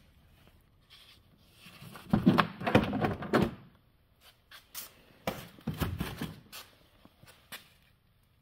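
Door trim panel of a 1987 Opel Kadett Caravan being pulled off the door, in two bursts of knocks and rattles: one about two seconds in, another about five seconds in.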